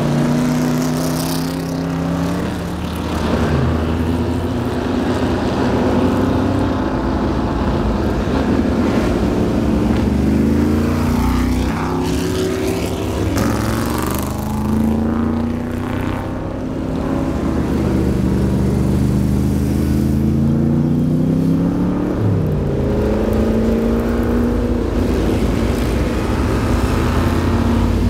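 Vintage race cars driving past one after another at low speed, among them a first-generation Camaro, a 1950s sedan and a winged Can-Am sports racer. Their engines rev up and drop back again and again as each car pulls away.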